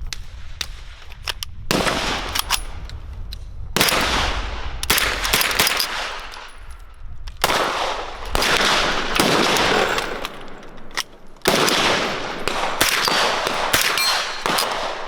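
Gunfire on a shooting range: many shots from several guns at irregular spacing, some close together, each loud crack followed by a long echo.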